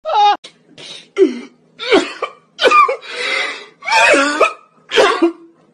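A person's voice making a string of about eight short coughing, yelping sounds with pitch sliding up and down, one of them a longer breathy rasp about three seconds in.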